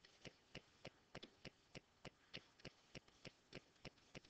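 Faint, evenly spaced ticking, about three ticks a second, over near silence.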